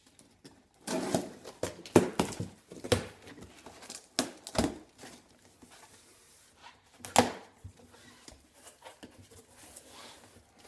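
A cardboard parcel being opened by hand: packaging tearing and crinkling, with irregular knocks and clicks as parts are handled, the sharpest about two seconds in and again about seven seconds in.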